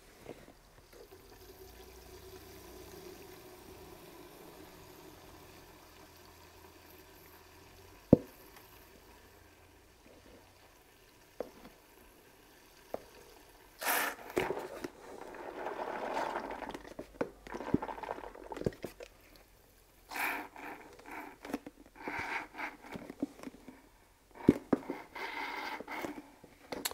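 Toilet bowl cleaner draining from an upturned plastic bottle into a rusty steel fuel tank through its filler neck. It trickles faintly at first, with a single click about 8 seconds in, then gurgles and splashes irregularly through the second half as air bubbles back into the bottle.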